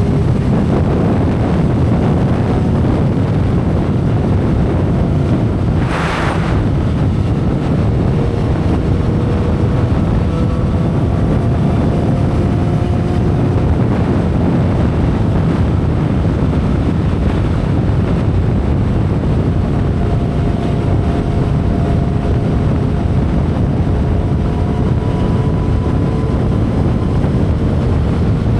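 2012 Kawasaki Ninja ZX-10R inline-four engine cruising at expressway speed, almost buried under heavy wind rush on the microphone. The engine note climbs slowly as the bike gathers speed. A short hiss comes about six seconds in.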